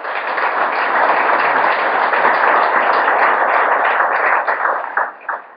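Audience applauding, thinning to a few last separate claps near the end.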